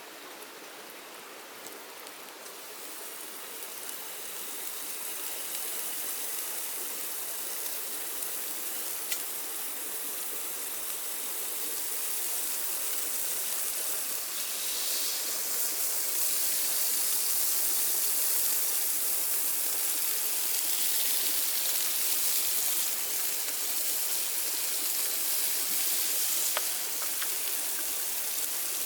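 Heavy rain falling in a steady hiss, growing louder through the first half and then holding, with a few faint drips.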